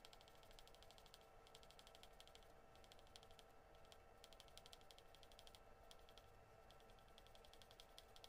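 Faint scratching of a graphite pencil on paper in quick back-and-forth shading strokes, coming in several runs with short pauses between them, over a faint steady hum.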